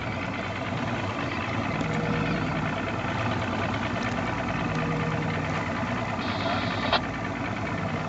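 Boat engine idling steadily, with a single sharp click near the end.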